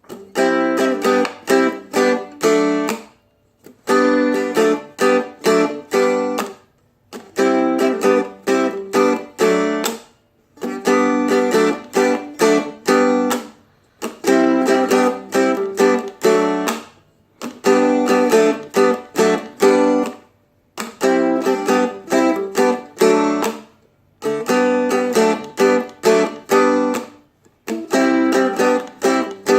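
Seagull Merlin M4 (four-string fretted dulcimer) strummed in quick chord strokes, moving among G, C and D chords in phrases about three seconds long, each followed by a brief pause.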